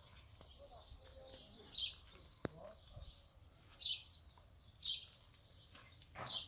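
A bird calling: short high chirps that slide down in pitch, four in all, about one to two seconds apart. A single sharp click falls between the first and second chirps.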